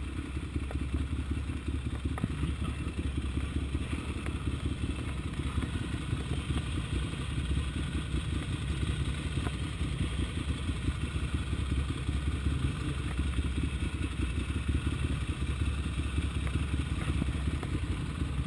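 Ducati Monster 795's air-cooled L-twin engine running at low speed and then idling, a steady low pulsing.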